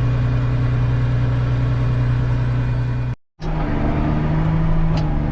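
Tractor engine running at a steady drone under load. It cuts out for a moment about three seconds in and comes back at a slightly higher pitch.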